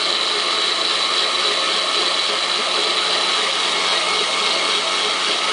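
A 1949 Arno blender's electric motor running steadily at an even pitch, with a constant hum under a high whine.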